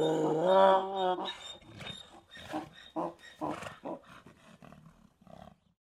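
An animal-like vocal call held at a steady pitch for about a second, followed by a string of short, quieter calls that fade away.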